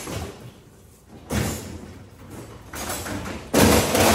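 Steel rolling toolbox rumbling and rattling on its casters as it is pushed across a concrete floor, with a clatter about a second in. Near the end there is a sudden loud metal crash that fades slowly as the toolbox is tipped over and its tools spill out.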